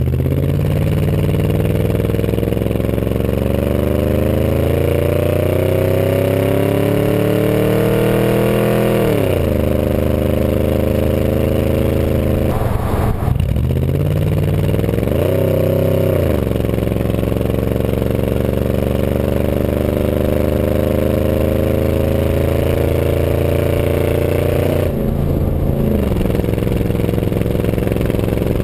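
Ford F-150's 5.4-litre V8 running through straight-piped 2.25-inch true dual exhaust with no mufflers, heard right at the tailpipe while driving. The pitch climbs steadily for about nine seconds as the truck accelerates, drops sharply at a gear change, then holds fairly steady at cruise, with a few brief dips and rises in revs and a climb again at the very end.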